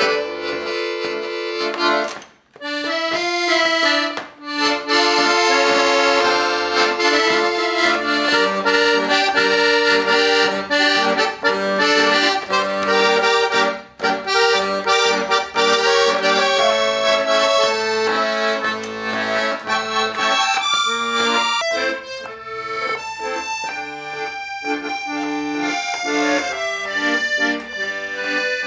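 Accordion playing a tune, sustained melody notes and chords over bass notes, with a brief break about two seconds in and another near the middle, softer in the last quarter.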